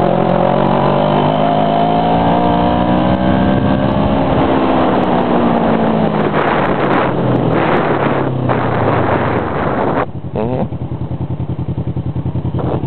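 Motorcycle engine under the rider, its pitch rising as it accelerates for the first few seconds and then falling as it slows, with wind rushing past. About ten seconds in the wind noise drops away and the engine settles into an even, steady low beat at low speed.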